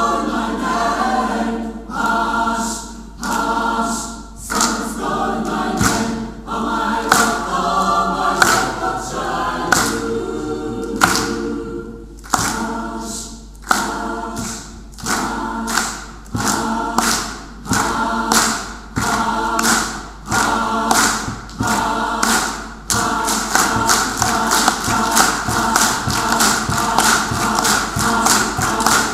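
Mixed choir of women's and men's voices singing a rhythmic piece with sharp, clipped accents. The singing becomes denser and more evenly pulsed near the end.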